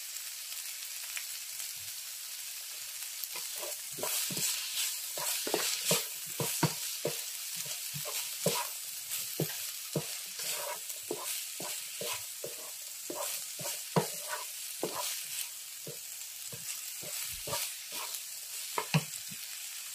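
Mixed vegetables sizzling in a non-stick frying pan while a wooden spatula stirs them. From about three seconds in come repeated, irregular scraping strokes of the spatula against the pan over a steady frying hiss.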